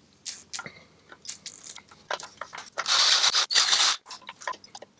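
Metal clicks and scraping as tools work the drilled rivets and end cap of a titanium exhaust silencer. About three seconds in there is one loud, rough, grinding burst lasting about a second.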